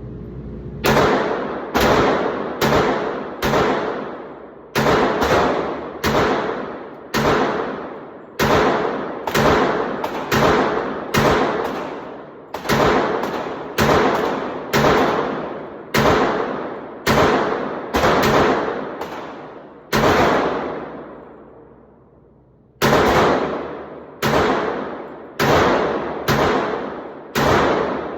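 Glock 30 .45 ACP pistol fired in slow, steady single shots, roughly one a second, each shot echoing away for most of a second, with one pause of nearly three seconds late on.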